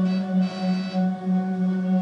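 Hurdy-gurdy sounding a steady low drone with a row of higher tones held above it, its loudness wavering a few times a second.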